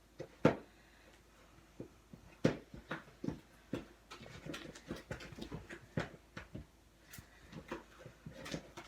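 Sticky glue slime being stirred in a bowl, making irregular wet squelches and clicks. The slime is still activating and too sticky to handle.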